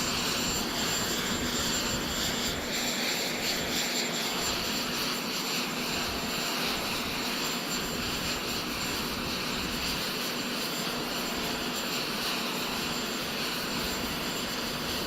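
Steady jet aircraft engine noise with a thin, constant high whine, unchanging throughout.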